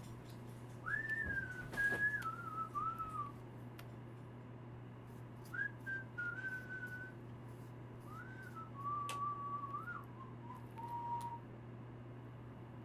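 A person whistling a tune in three short phrases, the pitch stepping and gliding mostly downward, over a steady low hum.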